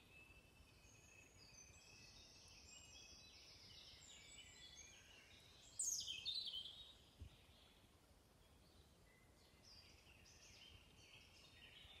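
Songbirds singing in woodland: several overlapping faint phrases, with one louder, nearer phrase about six seconds in that sweeps down in pitch. A brief soft low thump follows a second later.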